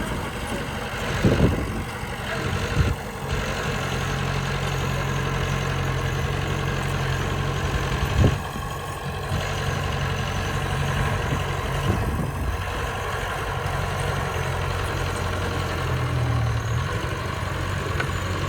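Bulldozer's diesel engine running steadily, broken by a few sharp knocks, the loudest about eight seconds in.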